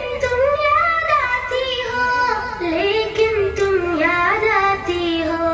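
A girl singing an Urdu nazm, drawing out long held notes that bend slowly up and down in pitch.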